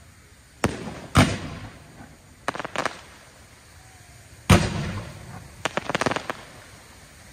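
Aerial firework shells bursting. Two bangs come about half a second apart near the start, the second the louder, then a quick run of three smaller pops, another loud bang halfway through, and a rapid cluster of crackling pops shortly after. Each bang trails off in an echo.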